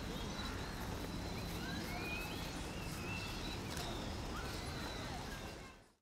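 Small songbirds calling, with thin high chirps and short rising notes, over a steady low background rumble. The sound fades out near the end.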